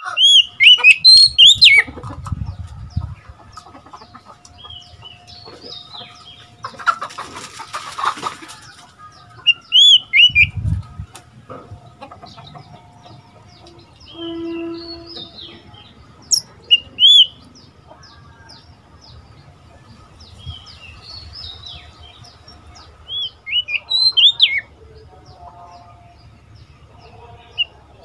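Oriental magpie-robin singing: several loud bursts of clear, rising and falling whistled notes with pauses between them.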